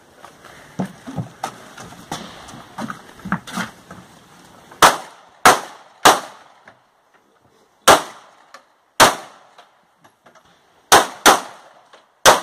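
Eight loud, sharp gunshots in uneven groups, starting about five seconds in, each with a short ringing tail. They follow several quieter knocks and scuffs.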